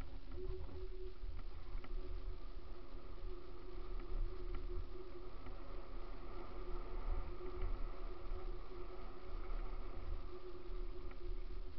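Mountain bike rolling fast down a dirt forest trail, heard from an onboard camera: low wind and rattle rumble, with a steady hum that sets in just after the start and a few faint clicks.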